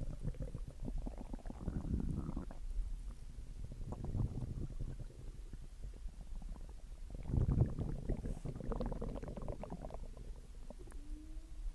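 Human stomach growling and gurgling after a meal: irregular bubbly rumbles that come and go, loudest about seven seconds in, with a drawn-out, slightly rising gurgling tone near the end.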